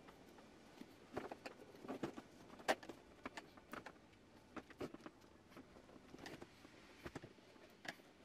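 Irregular clicks, taps and small snaps of hard plastic as a Volvo XC60 headlight's housing and lens edge are pried at with a flat tool. The sharpest snap comes a little under three seconds in.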